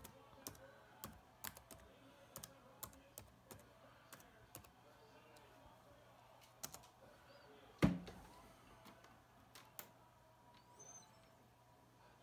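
Typing on a Toshiba Satellite L30 laptop keyboard: a quick run of key clicks over the first four and a half seconds, then a few scattered key presses, with one louder knock about eight seconds in. A faint low hum runs underneath.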